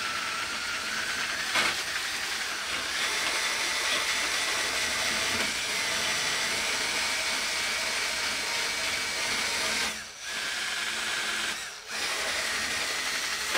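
Ryobi cordless drill spinning a roll-lock abrasive disc against a metal door frame, grinding off old foam and residue. A steady motor whine runs over a grinding hiss, dipping briefly twice near the end.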